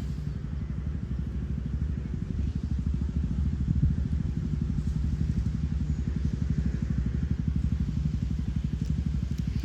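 Wind buffeting the microphone: a steady low rumble with a rapid flutter.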